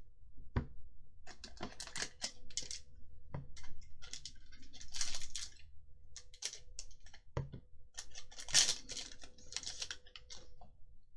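Trading cards being handled and flipped on a desk: an irregular run of clicks and taps with short sliding rustles, loudest about halfway through and again near the end.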